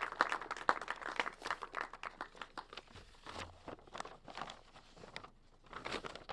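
Paper rustling and quick light clicks close to the lectern microphones as notes are set down and arranged, with a dull bump about three seconds in.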